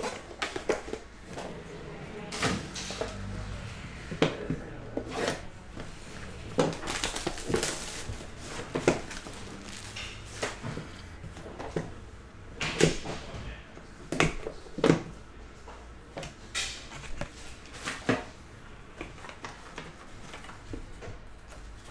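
Hands handling and opening a white cardboard card box with a black card sleeve inside: scattered short taps, scrapes and rustles of cardboard.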